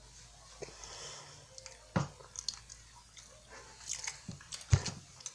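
Close-miked eating of French Pie, a flaky puff-pastry biscuit: crisp crunching and chewing in irregular crackles and clicks, with two louder sharp crunches about two seconds in and near the end.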